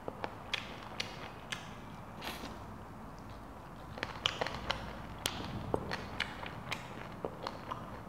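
Close-miked eating sounds as fried fish is eaten by hand: chewing and lip smacks in a string of irregular sharp clicks, busiest in the first second and a half and again from about four seconds in.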